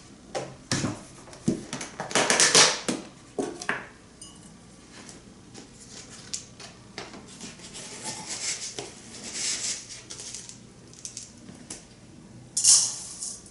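Quick oats being measured with a dry measuring cup and poured into a mixing bowl: knocks and clinks of the cup against the bowl and rustling pours of the dry oats, one a little after two seconds in and a loud one near the end.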